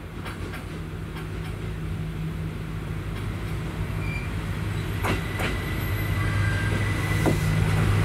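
JR Kyushu KiHa 220 diesel railcar pulling slowly into a station, its diesel engine humming steadily and growing louder as it nears. A few clicks of the wheels over rail joints come about five seconds in and again near the end, with a faint high squeal starting about five seconds in.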